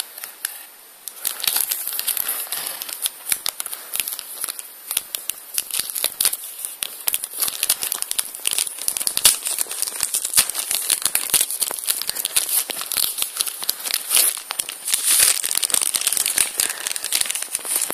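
Plastic packaging crinkling and crackling in dense, irregular bursts as it is handled, starting about a second in.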